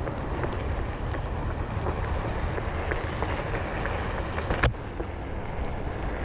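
Steady low rumbling noise with a sharp click about four and a half seconds in; after the click the hiss is duller.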